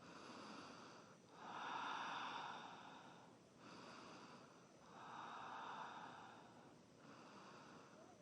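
Slow, deep breathing close to a clip-on microphone, about five long breaths in and out, each lasting one to two seconds, with a brief pause between them.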